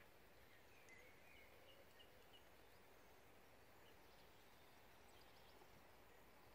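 Near silence: faint outdoor ambience, with a few faint, short bird chirps about a second in.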